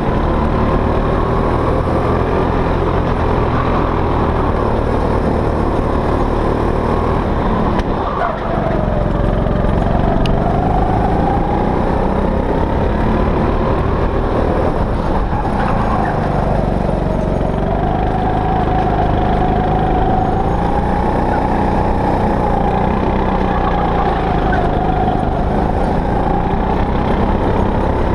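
Go-kart engine heard from on board, running hard through a lap. Its pitch rises under acceleration and drops as it slows for corners, with a brief lift about eight seconds in and another slow-down around sixteen seconds.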